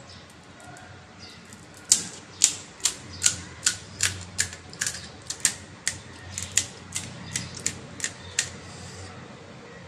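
Crisp fried puri (fuchka) shells crunching in a quick run of sharp cracks, about two or three a second. The run starts about two seconds in and stops after about six seconds.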